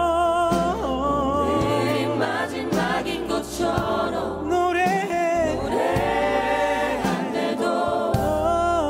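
A worship team of several vocalists singing a Christian praise song together in harmony, with long held, wavering notes.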